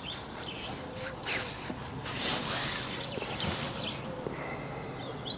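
Handling noise from an angler playing a hooked fish on a feeder rod: bursts of rustling about a second in and again through the middle. Birds chirp faintly.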